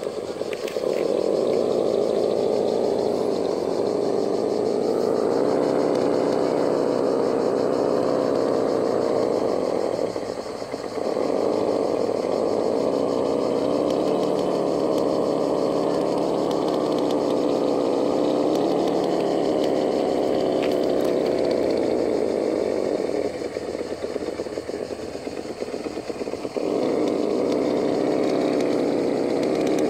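Vaterra Ascender RC rock crawler's electric motor and geared drivetrain whining under load as it crawls up rock. The whine stops briefly about ten seconds in and eases off for a few seconds later on, then pulls again.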